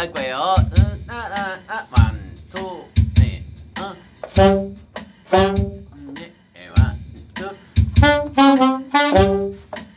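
Two alto saxophones playing short phrases together over a swing drum backing track. Just before they come in, a man sings the phrase.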